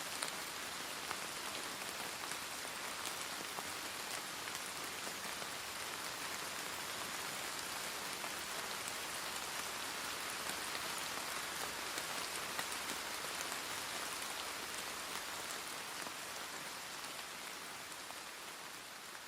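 Steady rain falling, a dense patter of scattered drops, fading out near the end.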